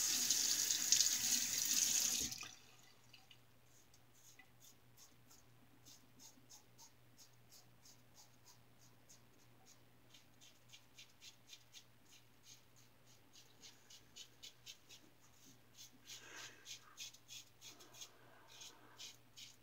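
Water running from a tap, cutting off about two seconds in. Then the crisp scrape of an injector razor's single-edge Schick blade cutting lathered stubble around the lip and chin in short strokes, several a second.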